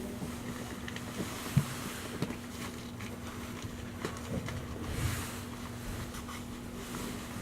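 Steady hum at one pitch over a low rumble from a stationary E351 series electric express train, with a few light knocks.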